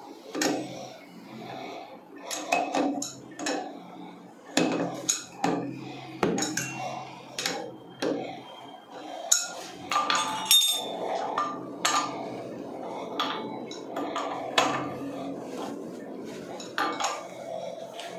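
Adjustable spanner clinking and scraping on the chrome-plated fittings of a wall mixer as its nuts are tightened: irregular metal clicks and knocks, with one longer ringing clink about ten seconds in.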